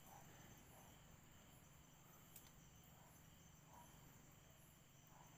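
Faint, steady chorus of night insects, crickets trilling, with a single small click a little over two seconds in.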